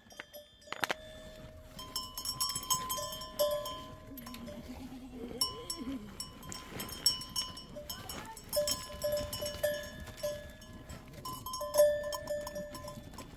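Livestock neck bells on a flock of goats and sheep clinking and ringing irregularly, with one animal bleating near the middle.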